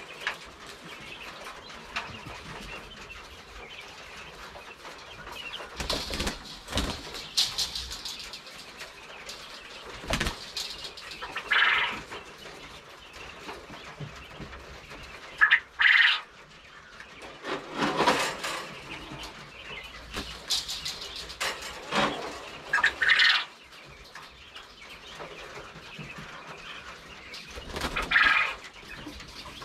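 Quail flapping their wings in scattered bursts as they are caught and moved between cages, with short quail crowing calls every few seconds.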